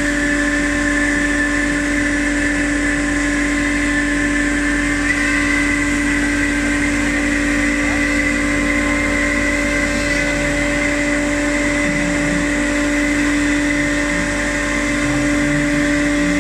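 A CNC machine running with a steady, even whine over a hum that holds without a break.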